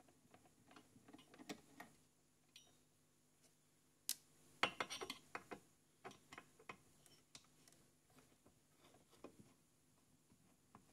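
Scattered small clicks and light knocks of tools and parts as a Unitra ZRK AT9100 receiver's power-amplifier block is taken apart, with a brief cluster of louder clatter about four to five seconds in.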